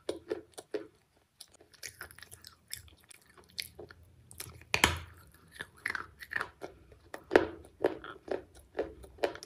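A person biting and chewing food, with irregular crunches and mouth clicks. The loudest bites come about five seconds in and again about seven and a half seconds in.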